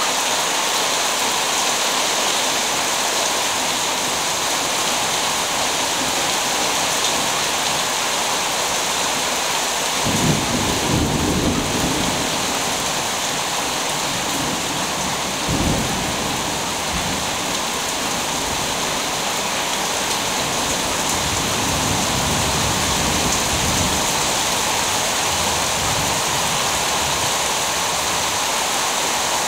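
Steady rain hissing throughout. About a third of the way in, thunder starts to rumble, with a sharper peak a few seconds later, then rolls on and fades out near the end.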